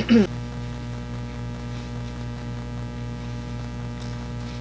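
Steady electrical mains hum. Right at the start there is a short voice sound that falls in pitch.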